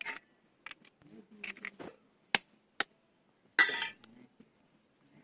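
Raw eggs being cracked into a steel bowl: scattered clicks and taps of eggshell, then a short crackling burst of shell breaking about three and a half seconds in, the loudest sound.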